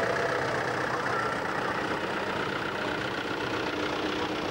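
Engine of a McCormick Farmall tractor running steadily at low revs as it tows a float at walking pace.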